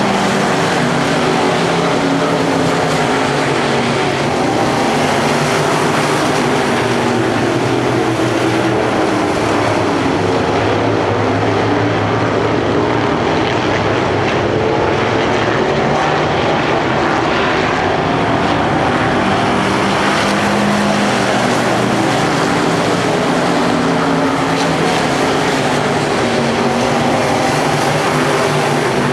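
Several dirt-track race cars' engines running hard around the track, a loud, steady, overlapping drone of engine tones that rises and falls only slightly.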